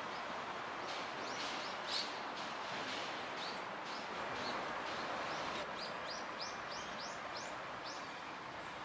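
Steady hiss of rain on a wet paved path and trees, with a small bird calling over it in short, high, falling chirps, a quick run of them near the end.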